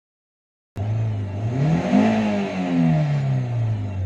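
Toyota Corolla Altis 1.8's four-cylinder engine revving, cutting in suddenly under a second in: the pitch climbs for about a second, then falls back slowly over the next two.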